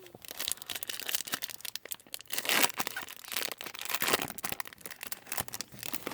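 Wrapper of a 2018 Topps Chrome baseball card pack being torn open and crinkled: a dense run of crackling, with louder rips about two and a half and four seconds in.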